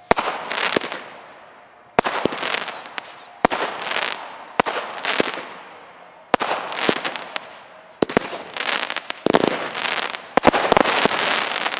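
Xplode Sunburn 49-shot consumer firework battery firing: sharp bangs every second or two, each followed by a crackling hiss that fades away. Near the end the shots come faster and the crackle runs together.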